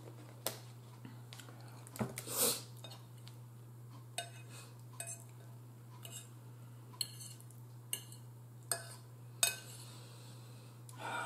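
Metal fork clinking and scraping against a bowl while picking at food, in scattered sharp clinks with one louder, longer clatter about two and a half seconds in. A steady low hum runs underneath.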